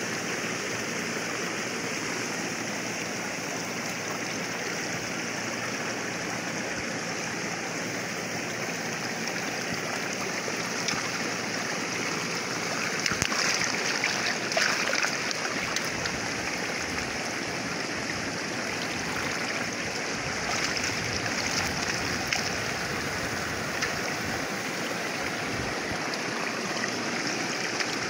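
Muddy water rushing steadily through a fine-mesh net set across a small channel. It gets louder and splashier about halfway through as a hand works in the churning water inside the net.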